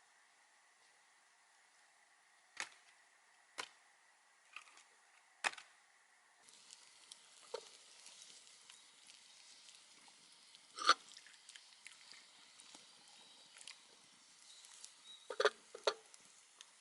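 Firewood being chopped with an axe: sharp wooden knocks at irregular intervals, four light ones in the first six seconds, one much louder strike about eleven seconds in and a quick pair near the end.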